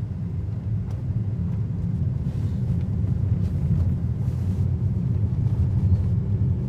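Steady low rumble of road and tyre noise inside the cabin of a moving BYD Seagull, a fully electric hatchback, so no engine is heard.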